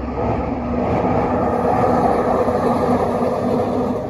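A vehicle passing close by: a steady rumbling hum with a low drone and a faint high whine, building over the first two seconds and easing off near the end.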